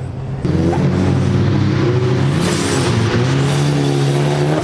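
Turbocharged 1.8-litre Mazda BP four-cylinder engine of an Exocet track car, running hard under acceleration. The engine note jumps up sharply about half a second in, then dips and climbs again about halfway through.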